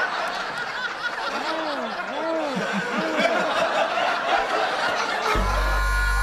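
Studio audience laughing at a sitcom punchline, with a few individual laughs rising and falling above the crowd. Near the end the laughter gives way to a held chord of transition music.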